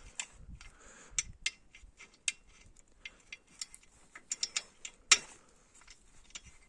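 Irregular small metallic clicks and taps of hands and parts being handled while the spark plug lead and cap are fitted onto a motorcycle engine's spark plug, with a sharper click about five seconds in.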